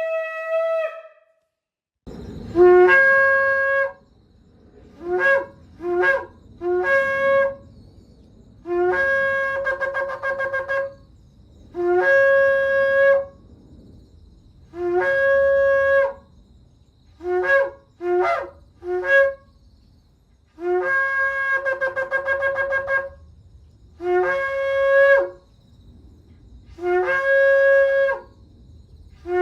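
Shofar (ram's horn) being blown. A held note ends in the first second; after a short pause comes a series of blasts in which long calls alternate with quick groups of three or four short ones. Each blast starts low and jumps up to its main note.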